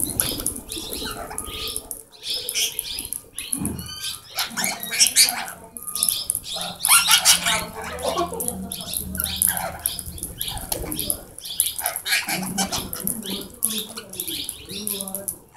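A flock of plum-headed parakeets feeding, giving a busy, irregular mix of short shrill calls and wing flutters.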